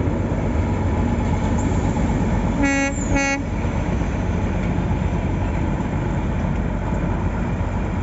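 Darjeeling Himalayan Railway toy train sounding two short toots about three seconds in, over a steady low rumble.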